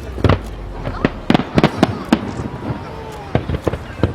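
Aerial fireworks bursting: a string of sharp bangs at uneven intervals, several in quick succession about a second and a half in and another cluster near the end.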